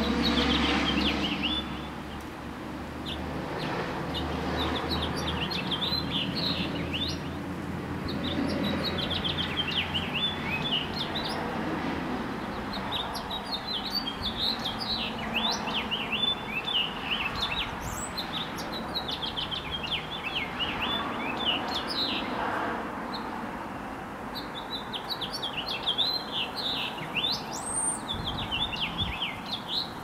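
Male house finch singing: several long phrases of quick, warbled, sliding notes, a few ending in a higher rising note. A low rumble sits under the first third.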